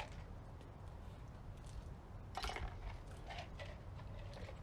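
Plastic push-pin retaining clips and the plastic top cover being handled and pressed into place: a cluster of sharp clicks and rustles about two and a half seconds in, then a few lighter clicks, over a low steady hum.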